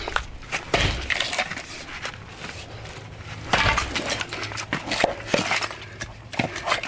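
Axe head with a steep single-sided bevel chopping into hard, dry eucalyptus: repeated sharp knocks as the edge bites and wood chips break off, the loudest a little past halfway.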